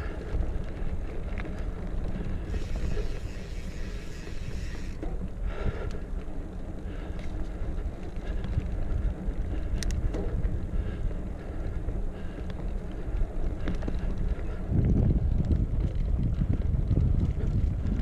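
Wind buffeting a chest-mounted action camera's microphone over the low rumble of a Specialized Stumpjumper 6Fattie mountain bike rolling along a dirt trail. There is a stretch of hiss about three seconds in and a single click near the middle, and the rumble grows louder about fifteen seconds in.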